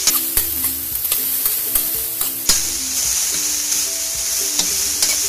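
Beef chunks sizzling as they fry in a steel wok, with a metal spoon scraping and clinking against the pan as they are stirred; a sharp clink stands out about two and a half seconds in.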